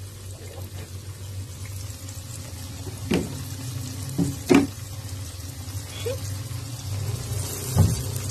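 Breaded chicken fillets frying in shallow oil in a wok: a steady sizzle, with a few sharp pops standing out.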